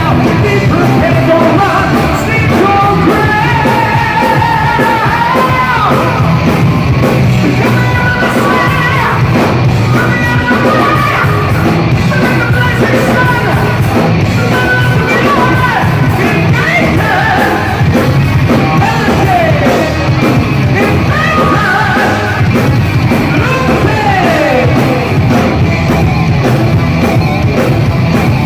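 Live rock band playing loud with a singer belting over the band, continuous throughout.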